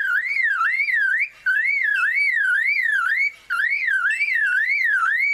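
Superb lyrebird mimicking a car alarm: a loud whistled tone warbling up and down, about three sweeps a second, in three phrases split by short breaks.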